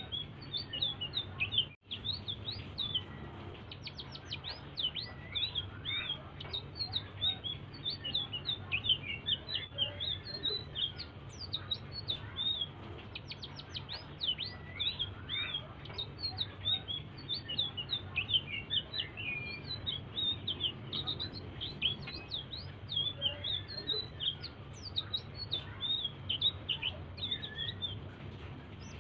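A small songbird of the kind Indonesian keepers call 'selendang biru' singing non-stop in a rapid run of high chirps and quick sweeping notes, with a brief drop-out just under two seconds in. A faint steady low hum lies underneath.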